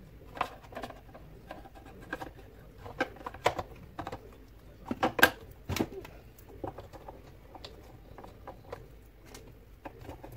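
Scattered light clicks and taps of plastic parts being handled while a red silicone hose is pushed onto the white plastic steam/hot-water valve fitting of a Saeco Xsmall espresso machine, with a quick cluster of louder clicks about five seconds in.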